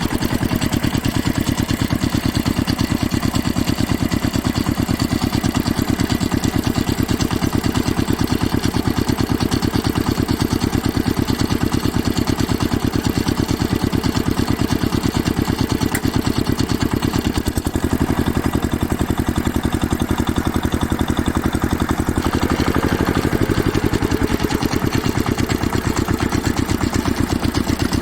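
Toy vehicle's engine running steadily with a fast, even chugging pulse, over a steady hiss. The pitch rises and falls briefly about twenty-two seconds in.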